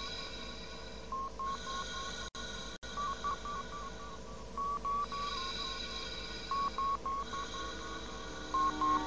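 Electronic beeping: short runs of pitched blips recurring every second or so over a steady electronic hum, like medical monitoring equipment in a science-fiction sickbay.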